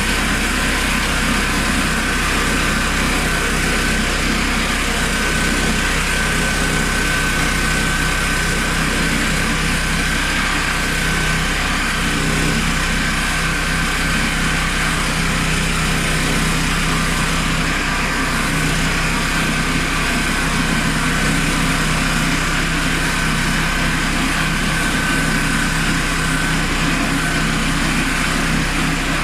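Honda GX390 single-cylinder petrol engine running steadily as it drives a homemade portable sawmill, with a thin steady high whine over the engine.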